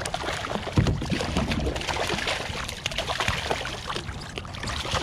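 Hooked coho salmon thrashing and splashing at the water's surface right beside a kayak: a dense run of irregular splashes that starts suddenly and is loudest about a second in.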